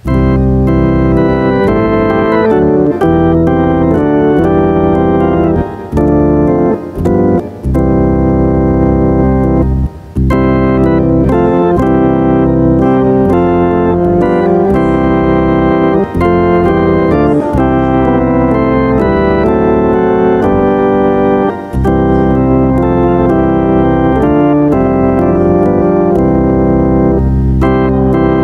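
Organ playing sustained chords in phrases, starting suddenly and pausing briefly between phrases.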